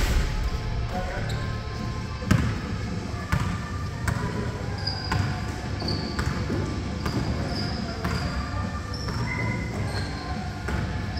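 Basketball game on a hardwood gym court: a loud bang right at the start as a shot strikes the hoop, then a ball bouncing on the floor every second or so and brief high squeaks of sneakers on the hardwood.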